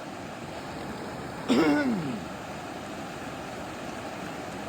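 Steady rush of falling water from a waterfall. About a second and a half in, a person gives one short vocal exclamation that falls in pitch.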